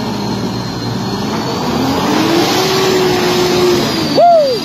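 Pickup truck engines under heavy load as a Mitsubishi Triton tows a loaded Toyota Hilux up out of deep mud; the engine note rises about two seconds in and then holds steady. A short, loud cry rises and falls near the end.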